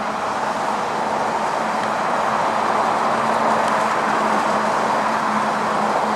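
Claas Jaguar 970 self-propelled forage harvester running steadily under load, chopping maize and blowing it from the spout into a trailer, with a John Deere tractor driving alongside. A dense steady mechanical noise with a low hum underneath, swelling a little over the first couple of seconds.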